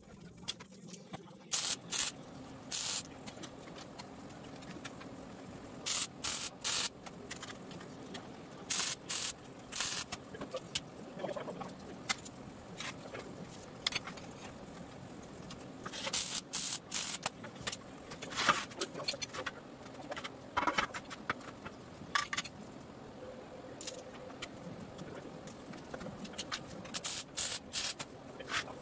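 Lincoln Electric MIG welder laying short tack welds on steel frame pieces: brief crackling bursts, a dozen or so spread through, several coming in quick pairs or clusters.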